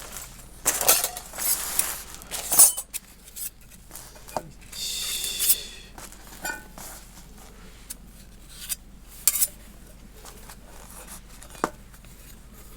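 Thin titanium fire-pit plates and parts clinking, rattling and scraping against each other as they are handled and fitted together, with several sharp clinks and a brief ringing scrape about five seconds in.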